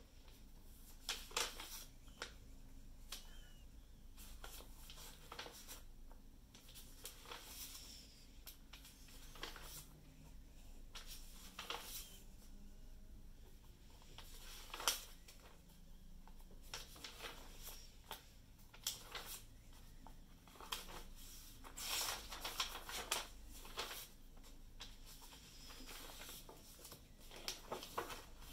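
Paper pages of a sketchbook being turned by hand: soft papery swishes and flaps at irregular intervals, with a few louder page flips.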